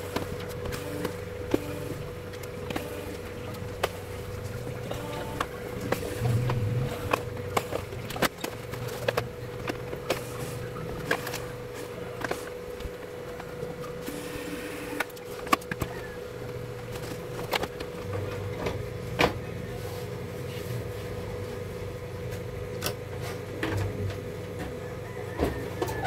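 Screws being taken out of a plastic LED TV back cover with a screwdriver, then the cover handled: many irregular sharp clicks and taps of the driver, screws and plastic panel, over a steady background hum.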